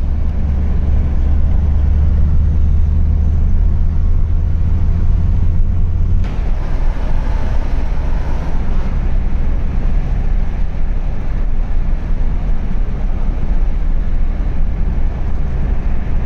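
A car driving, heard from inside the cabin: a steady rumble of engine and tyres. A strong low drone drops away about six seconds in.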